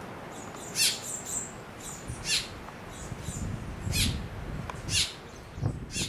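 Juvenile grackle begging for food from an adult: four loud, sharp, high calls about a second and a half apart, with softer chirps between.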